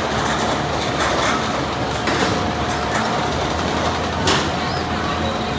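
Mine train roller coaster being hauled up its lift hill: the lift chain and drive running with a steady hum and an irregular clatter, with one louder clank about four seconds in.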